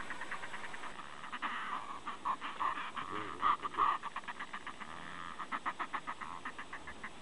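A pair of northern fulmars cackling at each other with bills open: a rapid chattering run of many short pulses a second, coming in several bouts and loudest a little past the middle. It is the pair's cackling display at their nest ledge.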